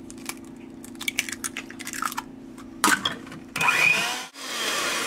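Electric hand mixer running in a glass bowl, blending an egg into creamed butter and sugar, with a steady motor hum and the beaters clicking against the bowl. About three seconds in there is a sharp knock, followed by a louder, noisier stretch of whirring and rattling.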